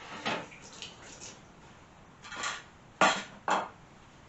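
Dishes and kitchen utensils being handled: scattered light knocks and clinks, a short rustle about halfway through, then two sharp knocks half a second apart about three seconds in.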